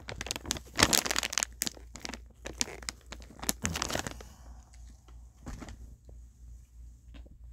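Rustling, crinkling noises, dense for about the first four seconds and then sparse, over a low steady hum.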